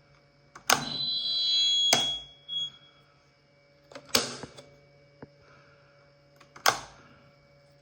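A strange house noise answering a spoken "hello": a sharp knock followed by about a second of high ringing tone, then three more single sharp knocks spread over the next several seconds. It is heard throughout the house, and the owner blames it on the electric power.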